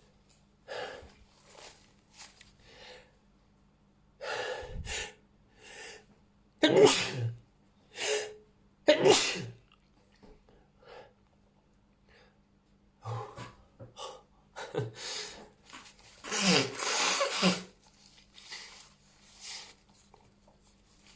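A person sneezing again and again, brought on by chhinkni, a Nepalese herbal sneezing powder. The sneezes come in irregular bouts, with quieter breaths between them. The loudest sneezes fall about seven to nine seconds in, and another long bout comes about sixteen seconds in.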